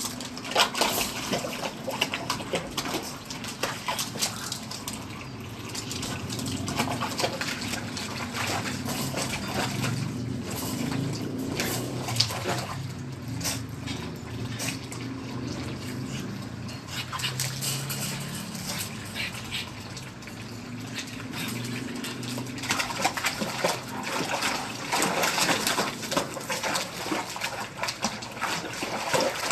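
Water splashing and sloshing in a foam-filled tub as a pug puppy climbs in and paddles about, over a steady wash of water that sounds like it is running or pouring in.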